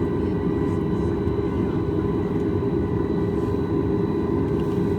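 Steady cabin noise inside a Boeing 737 MAX 8: a low, even rumble of the jet engines and airflow, with faint steady whining tones over it.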